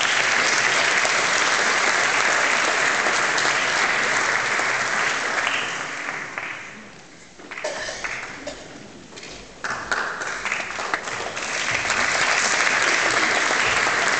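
Audience applauding in a large hall. The clapping thins out about halfway through, then swells back up.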